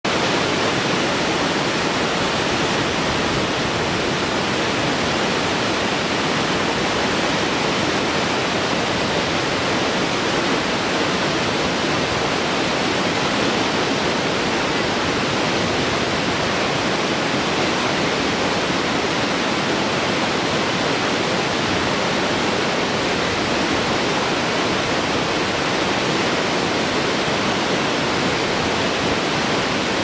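Waterfall: falling water rushing in a steady, unbroken roar of even loudness.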